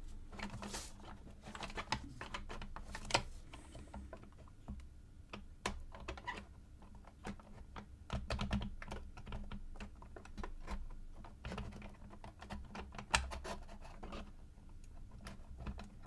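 Irregular small clicks and taps of a laser-cut plywood puzzle box, as a small wooden lever and the pieces around it are nudged and jiggled by hand, with two sharper clicks about three and thirteen seconds in. The lever goes up only once the pieces sit in exactly the right place.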